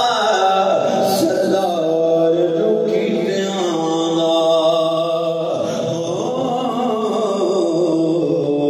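A man's voice chanting a melodic recitation through a microphone and loudspeakers, holding long drawn-out notes that slowly rise and fall.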